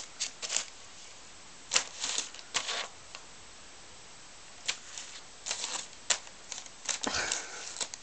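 Newspaper crackling and rustling in short, irregular bursts as a cat paws, bites and tears at it, with a lull of about a second and a half in the middle.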